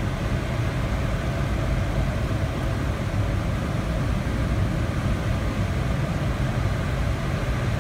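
Steady rush of airflow around the cockpit and canopy of a Grob 103 two-seat glider in flight, a deep rumble with hiss above it and no engine.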